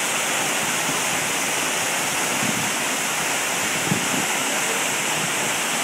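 Waterfall pouring into a rock plunge pool: a steady rushing of falling water.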